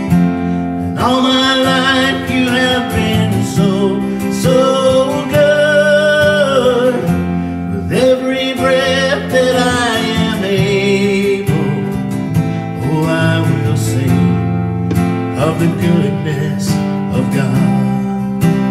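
A man sings a worship song while strumming an acoustic guitar, with an electric bass guitar playing along underneath. The singing comes in phrases with short breaks between them while the guitars carry on.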